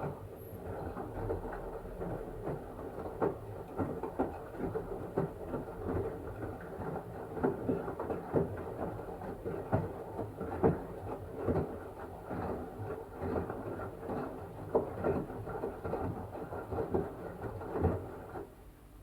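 LG washing machine drum tumbling a wet blanket: water sloshing with irregular soft thuds, stopping abruptly near the end.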